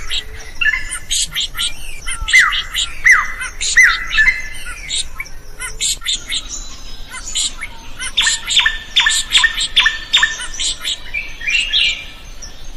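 Drongo (srigunting) singing vigorously with a varied string of notes. Downward-sliding whistles come in the first few seconds, then a fast run of repeated sharp notes from about eight seconds in.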